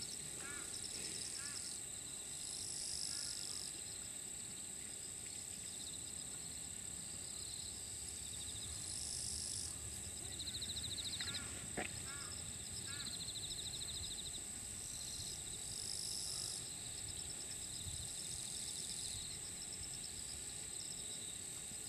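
Insect chorus in a summer pasture: a steady high shrill with pulsing phrases of insect song that swell and fade every few seconds, and a few faint chirps. A single sharp click about twelve seconds in.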